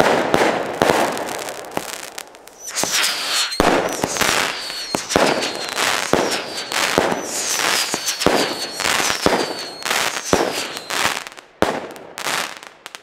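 Deko Black Ice firework battery firing fast: a dense run of sharp shots and bursting shells, with a falling whistle repeating through the middle of the volley. The volley dies away near the end.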